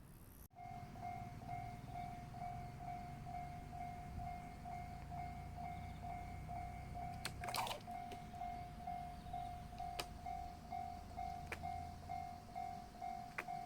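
A squirrel running: a scrabbling rustle about halfway through and a few sharp, scattered clicks of its feet and claws. A steady pulsing tone, about three pulses a second, runs underneath.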